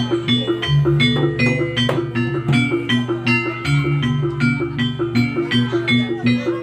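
Jaranan gamelan music: struck bronze pot gongs and metal keyed instruments playing a fast, evenly repeating pattern of ringing notes over sustained low gong tones.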